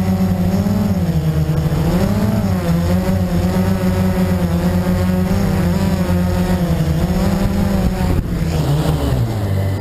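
Blade 350 QX quadcopter's brushless motors and propellers buzzing close to an on-board camera, the pitch wavering up and down as it manoeuvres. A little after eight seconds in there is a sudden scuffing hit as the quad touches down in the grass, and the motor pitch then falls.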